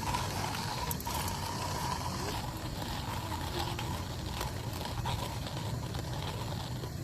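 Hand-cranked coffee grinder grinding beans: a steady grinding with scattered clicks throughout.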